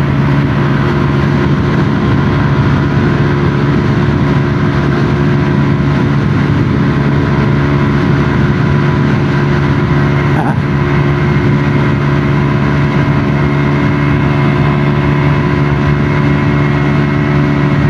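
Small CVT scooter engine running at steady high revs, its pitch unchanging, with wind rushing over the microphone. The scooter is held flat out into a strong headwind and cannot get past about 80 km/h.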